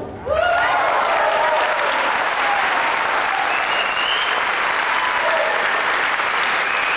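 Audience clapping and cheering, starting just after the music stops. Voices shout over the clapping in the first couple of seconds.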